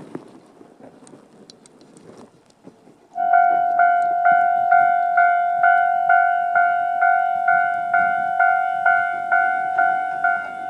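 Japanese level crossing's electronic warning bell, the standard Tobu-type sound, starting about three seconds in: a ringing ding repeated a little over twice a second, signalling an approaching train. Before it starts there is only faint background sound.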